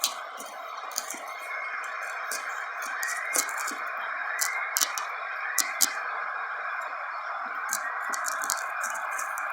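Steady rain falling, a continuous hiss with scattered sharp drip ticks.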